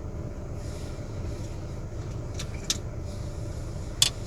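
Steady low hum of a Volkswagen Passat B5's engine idling, heard from inside the cabin. A few sharp clicks of plastic centre-console trim being handled sound over it, the loudest near the end.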